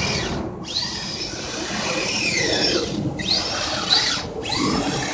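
Electric motor of a radio-controlled truck whining in bursts, its pitch rising and falling as the throttle is worked, with brief drop-outs when the throttle is let off.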